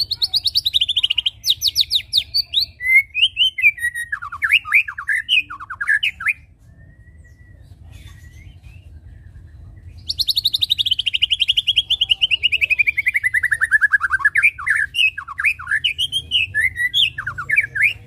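White-rumped shama (murai batu) singing two loud bouts with a pause of about three seconds between them. Each bout opens with a fast trill sliding down from high to low pitch, then breaks into varied whistled phrases.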